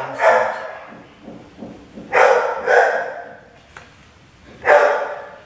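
A dog barking loudly four times: once at the start, twice in quick succession about two seconds in, and once near the end.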